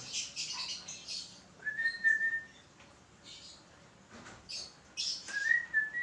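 Peach-faced lovebird giving short, high chirps, with two held whistled notes, one about a second and a half in and another near the end.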